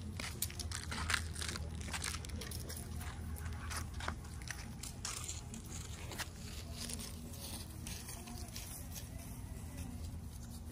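Dry leaves crunching and clicking under dogs' paws and a person's steps on concrete and grass, as pit bulls play and roam. The crunches come thick and fast for the first six seconds or so, then thin out, over a low steady rumble.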